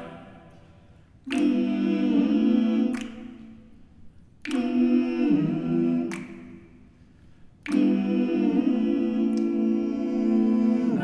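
Men's a cappella vocal ensemble singing sustained chords without words, in three entries. The first two each die away slowly in the church's reverberation, and the third chord is held.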